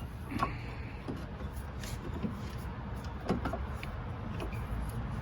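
Scattered light knocks and clinks of brake parts being handled as a caliper is worked back over new pads, with a brief hiss near the start, over a steady low hum.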